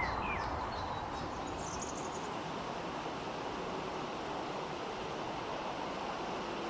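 Steady rush of flowing river water on an old camcorder's own soundtrack, with a few faint high chirps in the first couple of seconds.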